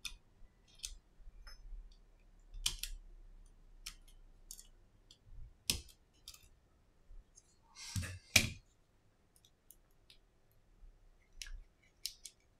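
Precision screwdriver, tweezers and small metal parts clicking and tapping on an opened iPhone 6s as its display connector shield is removed and the display is freed from the body. Scattered light clicks, with two louder knocks about eight seconds in.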